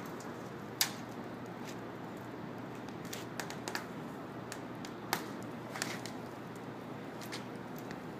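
Molten aluminium being poured into a sand mold with a foam pattern: a steady hiss broken by a few sharp pops and crackles as the foam burns off, the loudest near the start.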